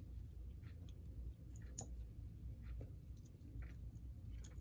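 Faint, scattered light clicks of small parts being handled while a model locomotive's front truck is taken apart, over a low steady background hum.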